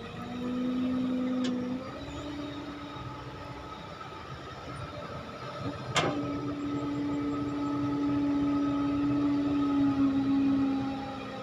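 Kobelco SK135SR excavator's engine and hydraulics running under load, a steady drone whose pitch steps up and down as the load changes. A single sharp clank comes about six seconds in.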